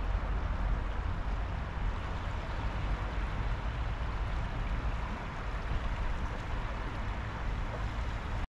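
Wind buffeting the microphone: a steady rushing noise with heavy low rumble, which cuts off abruptly near the end.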